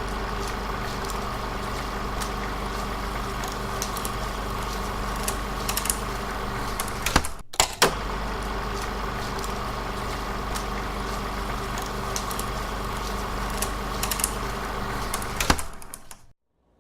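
Steady road and engine drone heard from inside a moving car, with a low hum and scattered small clicks and rattles. It breaks off briefly a little past halfway, then resumes.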